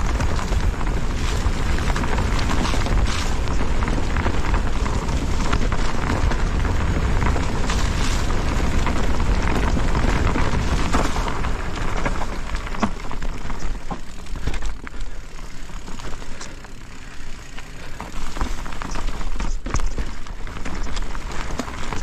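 Electric mountain bike descending a trail at speed: wind buffeting the camera microphone as a heavy rumble, with tyre noise on dirt and frequent knocks and rattles of the bike over roots and rocks. It eases off for a few seconds past the middle, then the knocks pick up again.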